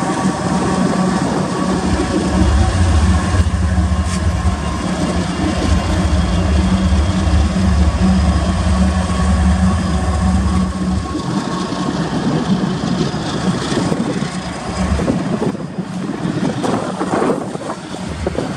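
Union Pacific GE ES44AC diesel-electric freight locomotives running past at slow speed, with a deep, steady engine drone. About eleven seconds in, the last locomotive has gone and the drone drops away. It gives way to the steel wheels of double-stack container well cars rolling on the rails, with clicks and clunks.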